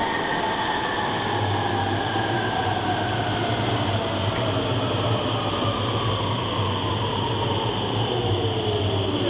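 Electric RET rail vehicle running on the rails, its traction motor whine gliding steadily down in pitch as it slows, over a steady low hum and rail noise.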